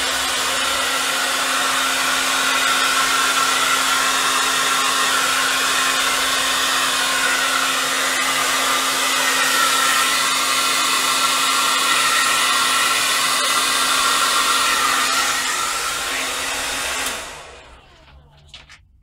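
Handheld heat gun blowing steadily with a constant motor hum. It is switched off about 17 seconds in and winds down to a stop.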